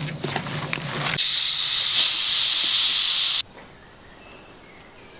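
Hands squelching through chunks of raw meat in a bowl, then a loud steady hiss for about two seconds that starts and cuts off abruptly.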